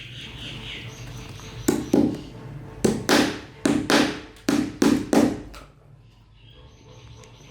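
Hand hammer blows in saddle-making work, about ten sharp strikes in quick twos and threes, each with a short ringing tail, followed by a pause.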